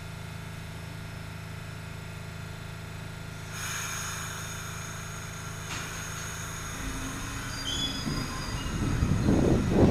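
New York subway train standing at a station platform with a steady low hum; a hiss starts about a third of the way in, with a click and faint high whines, and near the end a rumble and gusty wind noise build as the train starts to pull out.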